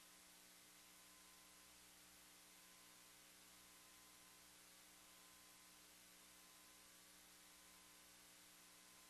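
Near silence with a faint steady electrical hum, as from mains hum on the audio feed.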